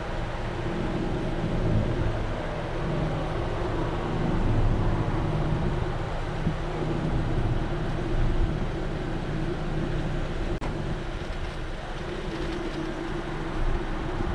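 Car engine idling with a steady low hum, heard from inside the cabin.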